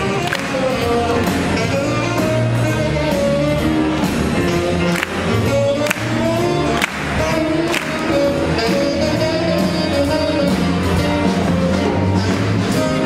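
Swing jazz band playing an up-tempo tune: a melody line moves between held notes over a steady beat.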